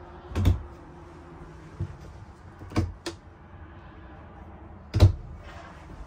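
Overhead cabinet doors being opened and shut by hand: a series of sharp knocks and clicks, the loudest about five seconds in.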